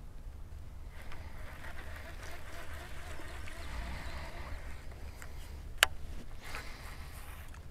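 Quiet on-the-water ambience from a fishing boat: a steady low rumble with a soft hiss that swells and fades in the middle, and one sharp click near the end.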